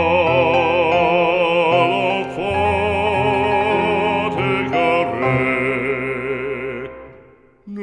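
Background music: a slow sung piece with long held notes with vibrato over steady low accompaniment, fading out about seven seconds in.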